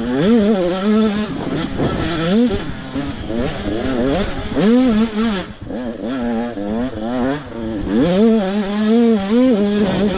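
Supermini motocross bikes racing, their engines revving up and down again and again, rising and falling in pitch throughout.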